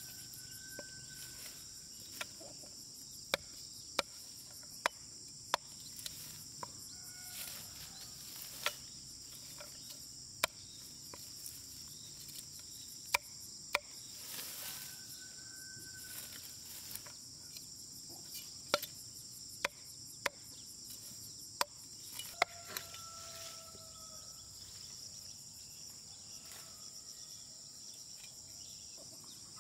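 A long knife chopping down onto a wooden chopping block, sharp single knocks at uneven intervals as peanut stems are cut from the pods; the chops stop after about twenty seconds. Steady high chirring of insects throughout.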